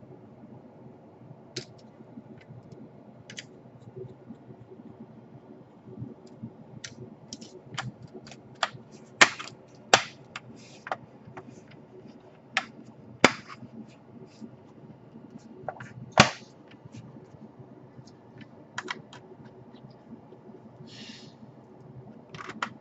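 Irregular sharp clicks and knocks of a laptop being handled and reassembled, its parts snapping and tapping together, a few of them much louder than the rest.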